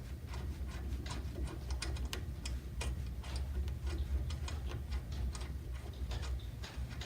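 Socket ratchet clicking in repeated strokes as a 14 mm wheel nut is loosened, over a steady low hum.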